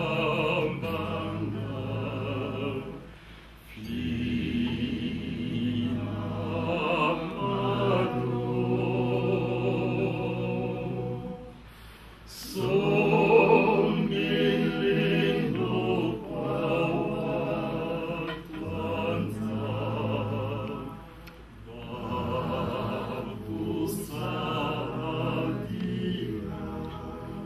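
A man singing, in long held phrases broken by short pauses.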